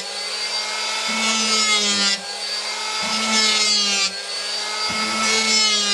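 Electric hand planer running and cutting a wooden board in about three passes of roughly two seconds each, its whine sagging slightly in pitch and the cutting noise swelling as each pass loads the blades.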